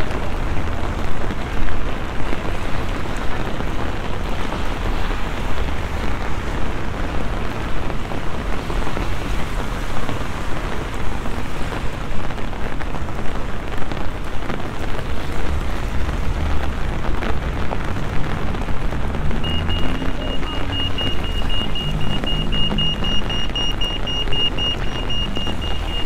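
Steady hiss of rain falling and splashing on a wet city street, recorded binaurally. About three-quarters of the way through, a high, steady electronic beep starts and carries on.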